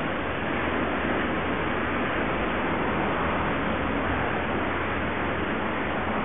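Steady, even rushing noise with nothing standing out from it.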